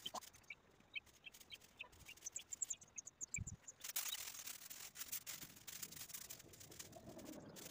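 Faint rustling, scraping and knocks from a handheld phone camera being moved, louder for a couple of seconds about halfway through. In the first three seconds a small bird chirps a quick run of short high notes.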